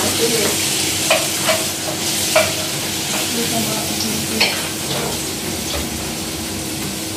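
Food sizzling in a frying pan on a gas hob as it is stirred, the utensil clinking against the pan a few times. A steady low hum runs underneath.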